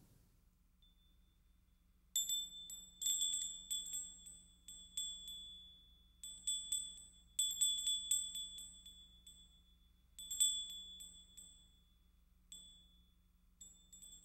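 Small metal wind chime tinkling in irregular clusters of light, high strikes, starting about two seconds in, each strike ringing at the same few high pitches.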